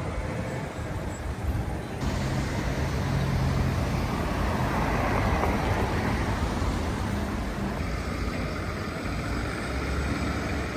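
City street traffic: road vehicles running by with a steady low engine hum, one passing close and loudest about halfway through.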